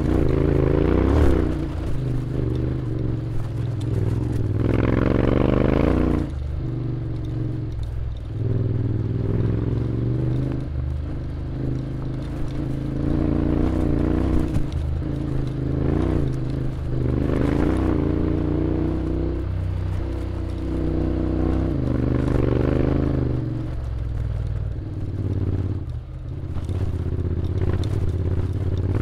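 Honda X-ADV 750's parallel-twin engine running under way, its pitch rising and falling with the throttle several times, with clear rises about five, seventeen and twenty-two seconds in.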